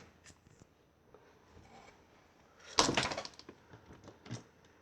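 Plastic Lego parts clicking and clattering as the model's legs are pulled out on their ball joints. There is a short run of clicks a little under three seconds in, and one more click about a second later.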